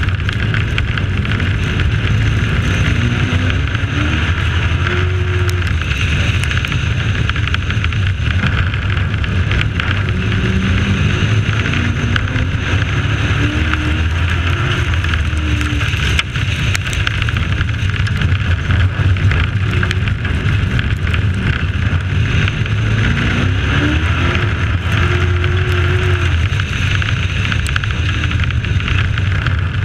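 Dirt-track race truck engine at racing speed, heard from an onboard camera, its pitch rising several times as it accelerates out of the turns, over a steady rushing noise.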